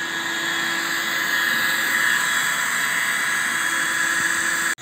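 Built-in electric air pump of an inflatable air mattress running steadily, blowing air in as the mattress inflates: a continuous motor whir with an airy hiss, with a brief dropout near the end.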